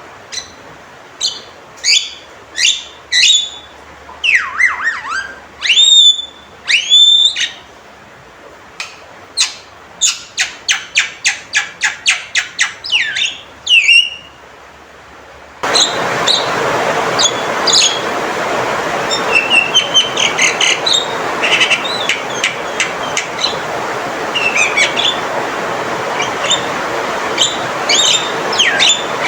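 Male Javan myna calling loudly: sharp whistled calls, some gliding down in pitch, and a fast run of short repeated notes at about two to three a second. About halfway through, the recording switches abruptly to one with a steady hiss under it, and the calls go on over the hiss.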